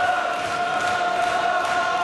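Arena crowd chanting in unison on a long, steady held note over general crowd noise.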